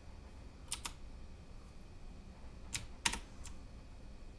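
Mechanical keyboard keys with Cherry MX switches pressed to change the RGB lighting mode: two quick clicks about a second in, then a tighter group of about three clicks near three seconds.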